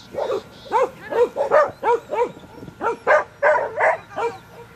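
A dog barking rapidly and repeatedly: about a dozen short, high barks at two to three a second, each rising and falling in pitch.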